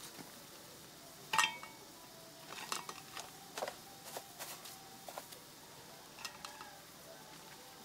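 A metal ladle clinks sharply against a large aluminium cooking pan, ringing briefly, about a second and a half in, followed by scattered lighter clicks and taps as seasoning is added to the simmering soup.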